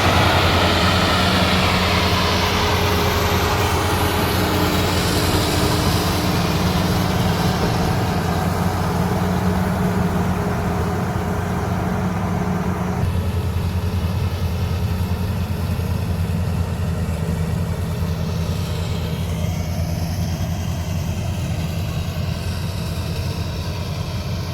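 Mahindra paddy combine harvester running steadily: a constant low engine drone with a rushing machine noise above it, which falls away about halfway through.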